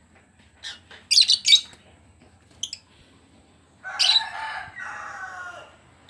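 Caged lovebirds chirping: sharp, high calls about a second in and again near three seconds, then a longer, lower bird call lasting about two seconds, starting about four seconds in.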